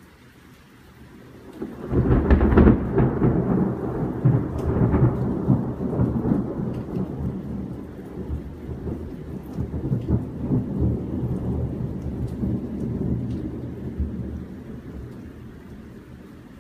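A thunderclap about two seconds in, followed by a long, rolling rumble of thunder that slowly fades over the next twelve seconds, over steady rain.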